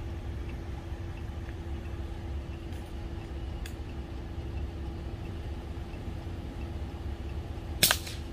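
Vehicle engine idling steadily, then near the end a single sharp crack from a shot of a Brocock Atomic XR .22 PCP air rifle, which hits the iguana.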